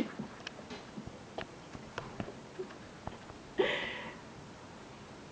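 Kittens playing: scattered light taps and scuffles of small paws on a hard surface, with one short, louder rushing sound about three and a half seconds in.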